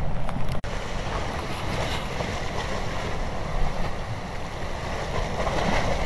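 Ocean surf: a steady rush of waves washing onto the shore, swelling again near the end, with a split-second dropout just after the start.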